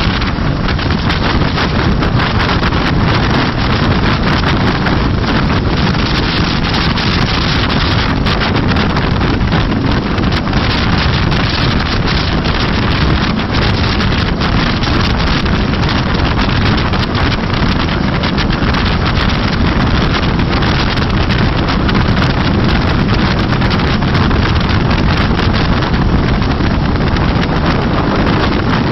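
Coastguard helicopter running, heard under loud, steady wind noise buffeting the microphone.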